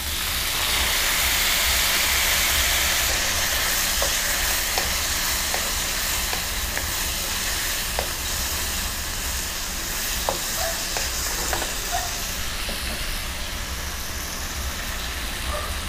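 Sauce sizzling as it is poured into a hot wok of stir-fried vegetables, loudest in the first few seconds and then easing to a steady sizzle. A wooden spoon stirs the vegetables, giving a few light clicks against the pan.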